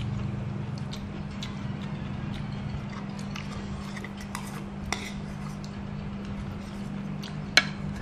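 Scattered taps and clinks of a spoon and dishes as people eat, with a sharp clink near the end, over a steady low hum.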